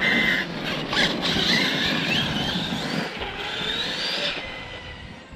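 Losi LST 3XL-E RC truck with a Hobbywing Max 6 ESC and Dynamite 2200 kV brushless motor being driven hard over rough ground. A high motor whine rises and falls with the throttle over a dense tyre and drivetrain noise, dying away about four seconds in.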